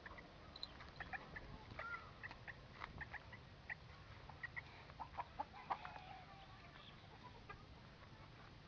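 Chickens clucking: many short calls in quick succession, thinning out after about six seconds.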